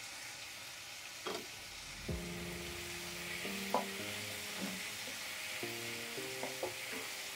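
Onions, tomatoes and curry leaves sizzling in oil in a kadai, stirred with a wooden spatula that knocks against the pan now and then. Soft background music comes in about two seconds in.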